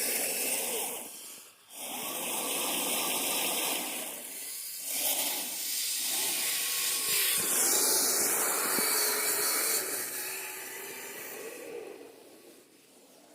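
Electric motor of a Kyosho Blizzard RC snowcat whining as its tracks churn through snow. The sound drops out briefly twice early on, then fades near the end.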